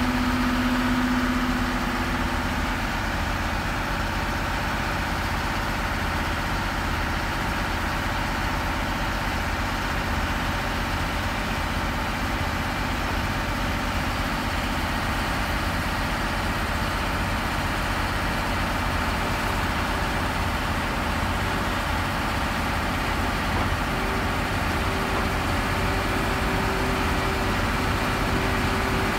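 Steady mechanical hum and noise of an EF81 electric locomotive running slowly on its own, without a train. A steady tone comes in near the end.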